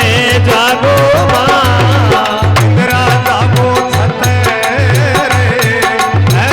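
Rajasthani devotional bhajan music: a wavering, ornamented melody line over a steady, driving drum beat with frequent percussion strokes.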